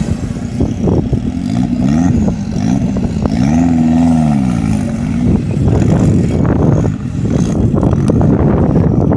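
Off-road buggy's engine revving in repeated rising-and-falling surges as it claws up a steep dirt climb, then running hard with a rougher, noisier sound over the last few seconds.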